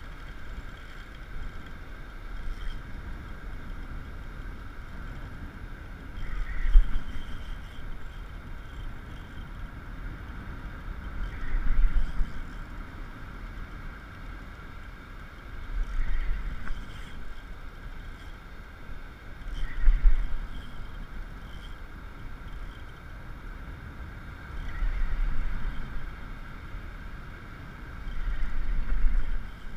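Ocean surf on the beach, swelling and washing in about every four to five seconds, with a low rumble at each swell.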